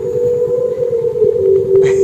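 A droning musical sound effect: long steady held tones with a low rumble beneath them. Near the end, brighter notes start to come in.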